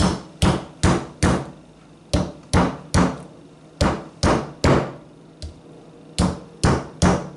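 Hammer striking a plastic star-shaped cookie cutter to drive it into the hard rind of a raw pumpkin: about a dozen sharp knocks, mostly in quick runs of three with short pauses between.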